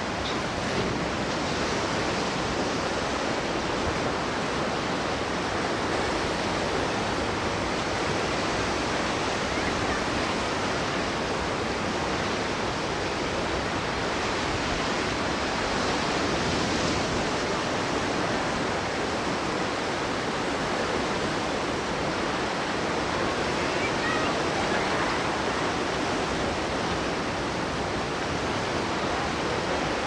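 Ocean surf washing onto a sandy beach: a steady, even rush of breaking waves with no distinct crashes standing out.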